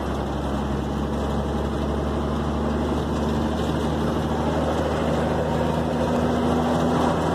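Truck engine running steadily, heard from inside the cab while driving, with a low hum and road noise.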